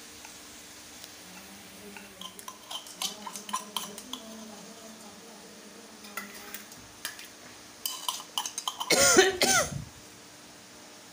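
Steel tumbler and steel bowl clinking and tapping, with a thin metal tool scraping, as freshly ground spice is knocked out of the tumbler into the bowl. A louder clattering burst comes near the end.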